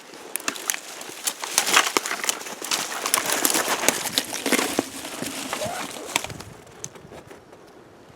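Brush and riverbank debris crackling and rustling, with many sharp snaps and clicks as it is pushed about, dying down near the end.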